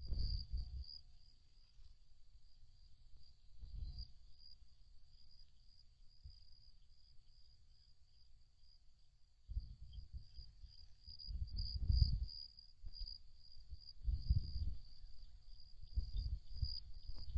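Night insects trilling steadily in a high, finely pulsing chorus, with irregular low rumbling gusts of wind on the microphone at the start, around four seconds in, and repeatedly through the second half.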